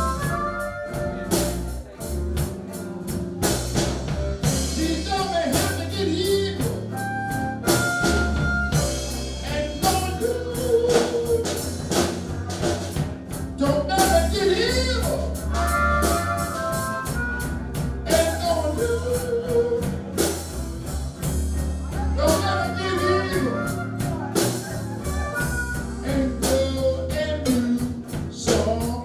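Live blues band playing: a man sings over electric guitar and drums, with a steady beat throughout.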